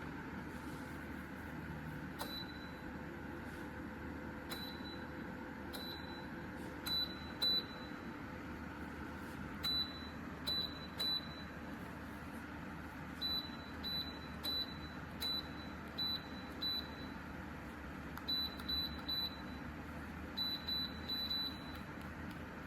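Short high electronic beeps from the QEXREED PTC fan heater's controls, about twenty of them, single or in quick runs of two or three, as buttons are pressed to change its settings. A steady noise runs beneath them.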